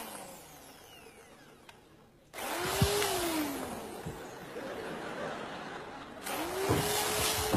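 Handheld electric power tool starting up about two seconds in, its motor whirring with a pitch that rises and then falls. It eases off for a moment, then runs again louder near the end.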